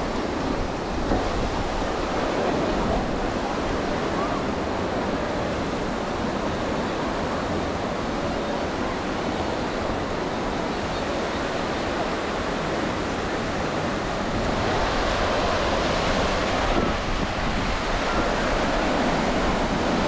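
Surf breaking on a sandy beach: a steady wash of waves that grows louder about three-quarters of the way through.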